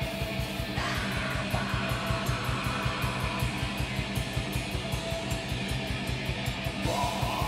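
Live metal band playing: electric guitars over fast, steady drumming, with a higher guitar line coming through briefly about a second in and again near the end.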